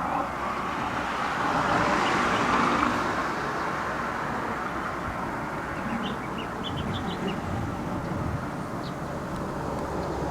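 Road traffic at a highway intersection: a steady hiss of passing vehicles, with one vehicle swelling loudest and passing about two to three seconds in. A few short high chirps come through near the middle.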